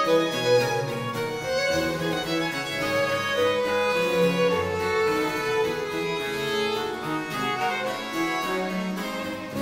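Classical background music led by violin over a bowed-string accompaniment.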